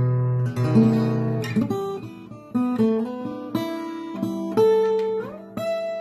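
1970s EKO Folk Blues parlor acoustic guitar played, a run of plucked notes and chords, with a couple of notes sliding up in pitch.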